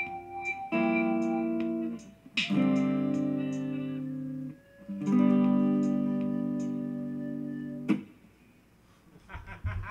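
Guitar chords struck and left to ring, three in a row, the closing chords of a live jam. Light regular ticks go along with the first few seconds. The last chord is cut off with a click about eight seconds in.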